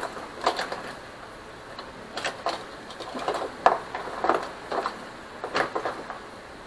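Irregular clicks and light clatters of small hard objects being handled, as someone rummages through things looking for a pen.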